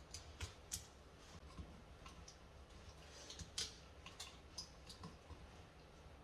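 Faint, irregular clicks and light taps of hands working a wall switch and its electrical tape and wiring, with a slightly louder click about three and a half seconds in.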